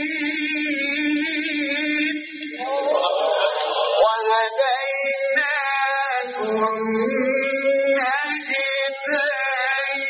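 Male Quran reciter chanting in the melodic mujawwad style, drawing out long, wavering held notes.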